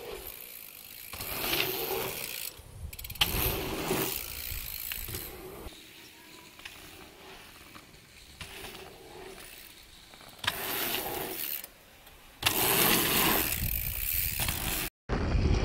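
Mountain bike riding dirt jumps: tyres rolling over packed dirt and the rear freehub ticking as the rider coasts, with a few sharp knocks. The sound comes in several short stretches that start and stop abruptly.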